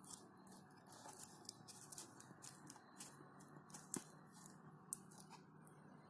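Faint, irregular crackling and ticking of dry birch bark pieces being handled and pressed onto a pot, with one sharper tick about four seconds in.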